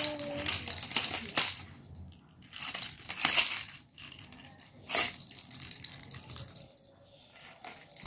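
A baby's jhunjhuni (hand rattle) shaken in several short bursts of bright rattling with pauses between.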